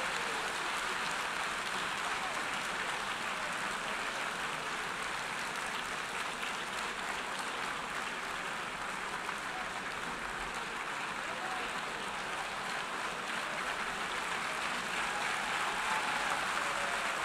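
Long, steady applause from a large hall full of delegates greeting a vote result, swelling a little near the end.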